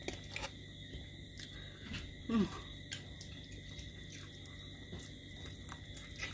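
Eating sounds from chewing spicy chicken wings: scattered small mouth clicks and smacks, with one short voice sound falling in pitch about two and a half seconds in.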